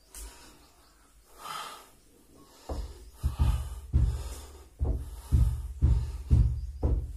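A man's heavy, hard breathing close to the microphone while exercising: soft at first, then from nearly three seconds in a forceful puff about twice a second, in time with rapid leg raises.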